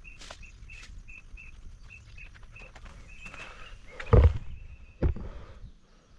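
A short high chirp from a wild creature repeats about three times a second. Two loud thumps, about four and five seconds in, are the loudest sounds.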